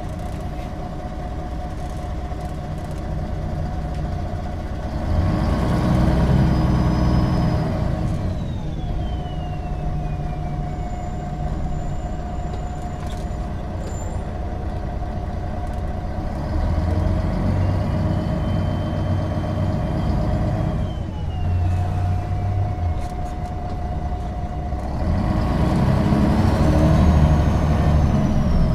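MAN NG 313 articulated bus's D2866 six-cylinder diesel and Voith automatic gearbox driving along: the engine pulls harder three times, and after each surge a whine glides down in pitch as the bus slows.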